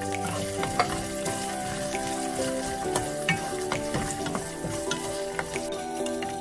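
Chopped tomatoes sizzling in hot oil in a nonstick wok while a wooden spatula stirs them, with scattered clicks and scrapes of the spatula against the pan.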